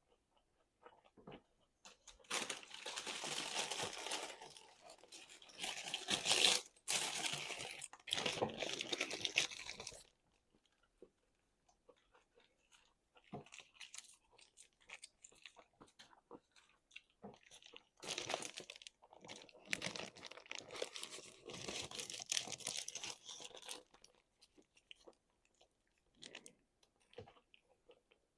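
Close-miked chewing of crunchy food: two long stretches of dense crunching, with scattered small mouth clicks in between and near the end.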